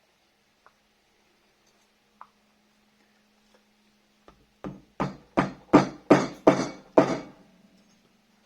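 A quick run of about seven sharp knocks, roughly three a second, growing louder, each with a short ring, over a steady low hum.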